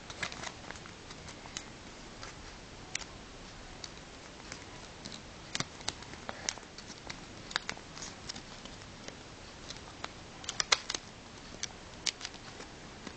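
Sheet of origami paper being handled and creased by hand: scattered light crinkles and ticks at irregular intervals, with a quick cluster a little over ten seconds in.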